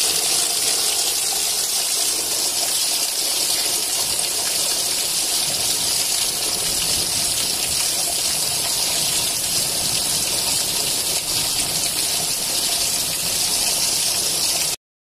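Heavy rain pouring steadily, a dense, even hiss, which cuts off abruptly just before the end.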